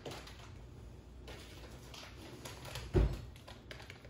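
Faint kitchen room noise with a few light clicks and one dull thump about three seconds in.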